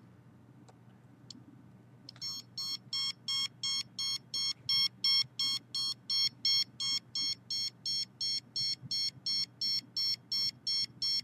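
Handheld RF detector beeping rapidly, about four short beeps a second, starting about two seconds in after a brief pause. It is reacting to a high reading close to the computer.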